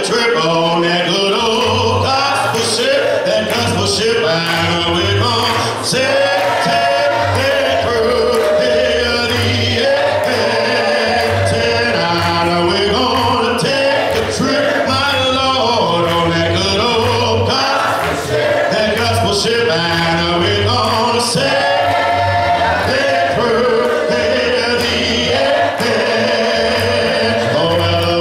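A male song leader sings a gospel song through a microphone, and a congregation sings along a cappella, with no instruments. Low bass voices come in under the melody.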